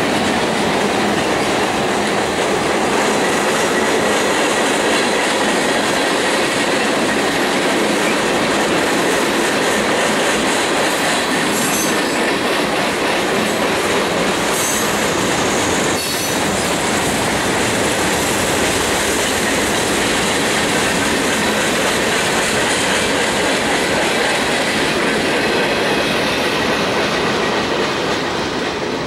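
Freight cars (flatcars, tank cars and covered hoppers) rolling past on steel rails: a steady noise of wheels on track with a faint high squeal, fading near the end as the last cars clear.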